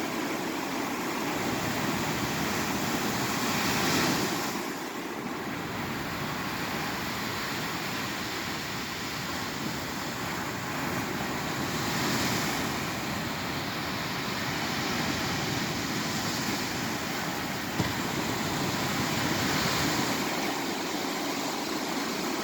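Gulf surf washing onto a sandy beach: a steady rush of water that swells as waves break about every four to eight seconds. There is one brief sharp knock near the end.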